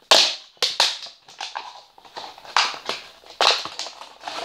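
Clear plastic bag crinkling and rustling in irregular bursts as it is pulled open by hand.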